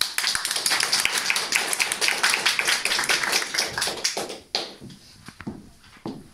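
A small audience clapping, which dies away about four and a half seconds in, followed by a few separate footsteps on a wooden floor.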